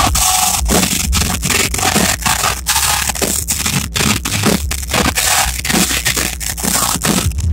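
Rock band playing live at full volume, recorded through an overloaded phone microphone, so the music comes through harsh and crackling, broken up by constant distortion.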